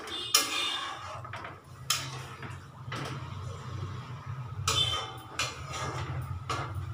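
Metal spoon stirring a watery curry in a metal kadai, knocking against the pan a few times, over a low steady hum.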